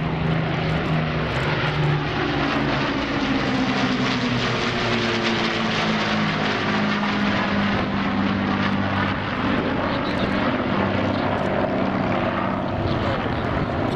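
Rolls-Royce Merlin V12 engines of an Avro Lancaster and a de Havilland Mosquito flying past together, a steady sound of several engine tones at once, falling slowly in pitch over the first several seconds as the planes pass.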